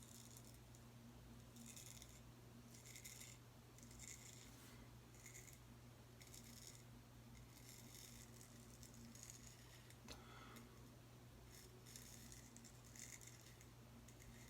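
Faint, short scraping strokes of a Boker Tree Brand straight razor cutting through lathered stubble, a stroke about every second, over a steady low hum.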